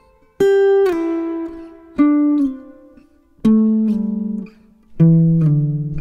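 Acoustic guitar played with descending slides: four single notes plucked about a second and a half apart, each sliding down to a lower pitch after it is struck.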